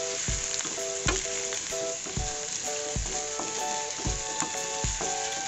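Chopped garlic and onion sizzling in hot oil in a stainless steel pan as they are stirred with a wooden spatula. Background music with a steady beat plays underneath.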